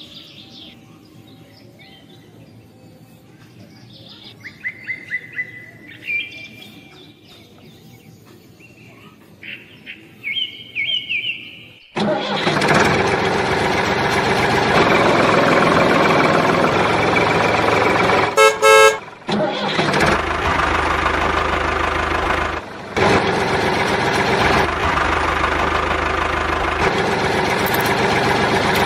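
Birds chirping, then a loud, steady motor running sound starts abruptly about twelve seconds in. It dips briefly twice, a short horn honk sounds partway through, and it cuts off at the end.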